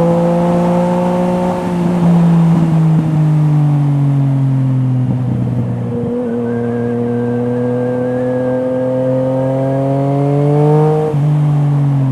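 Yamaha MT-09's three-cylinder engine through an Akrapovič exhaust, heard from on board while riding. The engine note eases off and falls for a few seconds, then climbs steadily under throttle before dropping abruptly near the end.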